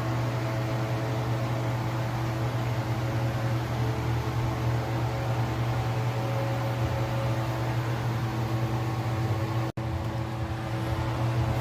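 A steady machine hum: a constant low drone with a few fixed tones above it and a hiss, cutting out for an instant near the end.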